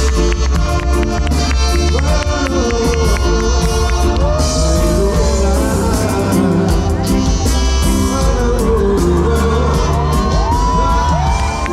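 Live reggae band playing an instrumental passage, with a heavy, steady bassline and regular drum hits, and shouts and voices from the crowd over the music.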